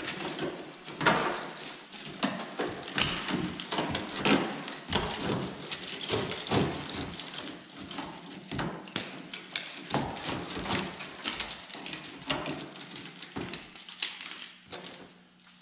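Irregular knocks, taps and scrapes of hand work on the rusty sheet-metal bedside of a pickup, with no power tool running. The strikes come unevenly, every fraction of a second to a second, and thin out near the end.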